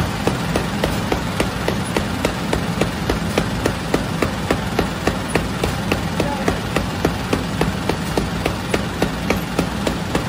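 Industrial conveyor bread oven machinery running: a steady low hum with an even, rapid clicking at about four clicks a second.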